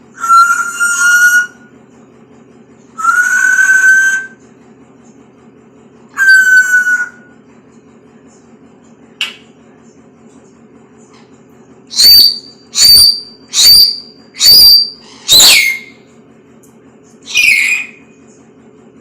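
Talking pet bird whistling: three held whistles at one steady pitch in the first seven seconds, then past the middle a quick run of five sharp calls, each dropping in pitch, about two a second, and one more falling call near the end.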